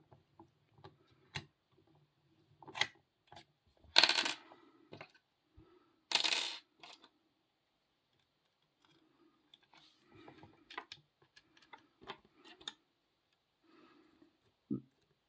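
Small metallic clicks and scrapes of a lock pick and tension wrench working in a 40 mm Costa padlock, with two louder metal clinks of about half a second each, some four and six seconds in.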